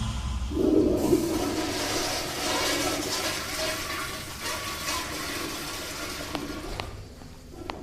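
Rushing, swirling water that starts about half a second in and slowly dies away over about six seconds.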